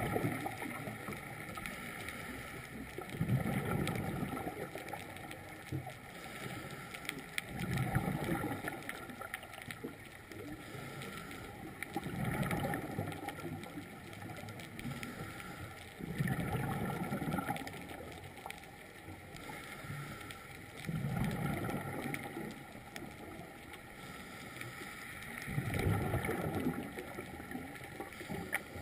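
Scuba diver's regulator underwater: a burst of exhaled bubbles about every four to five seconds, six in all, over a faint steady hum.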